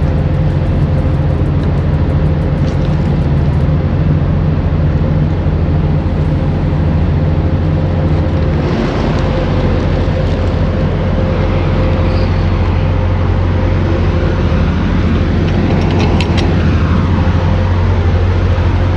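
Diesel engine idling steadily, a constant low hum with a steady mid-pitched tone over it. A quick run of metallic clicks comes about sixteen seconds in.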